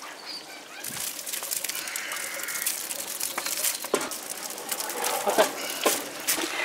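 Crackling and hiss with scattered short clicks from large cooking pots over an open wood fire, with faint voices in the background.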